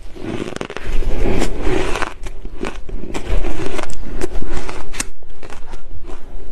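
Close-miked chewing of a mouthful of shaved ice dusted with matcha powder: a dense run of crunches and crackles that gets louder about a second in.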